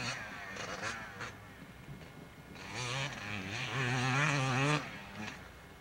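Dirt bike engine revving on a motocross track, its pitch wavering rapidly up and down as the throttle works. Briefly in the first second, then louder from about halfway until it drops away near the end.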